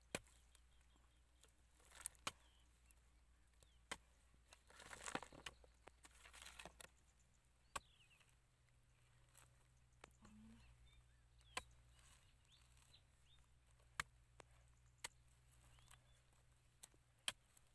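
A small hand trowel digging into hard, dry cracked mud: scattered sharp knocks, with a longer scraping stretch about five to seven seconds in.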